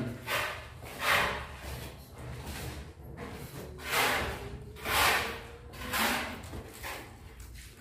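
Footsteps going down concrete stairs, a scuffing step about once a second.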